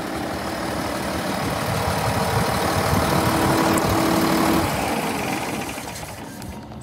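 1981 International Harvester 1486 tractor's turbocharged six-cylinder diesel engine idling steadily. It grows louder over the first few seconds and fades near the end.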